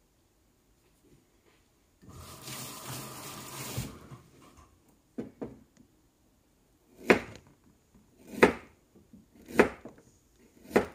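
Kitchen knife slicing ginger on a cutting board: two light taps, then four sharp knocks a little over a second apart. About two seconds in there is a two-second rushing noise.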